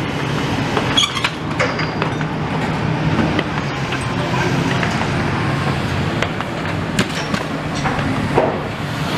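Steady engine noise with a low hum, and a few short sharp knocks.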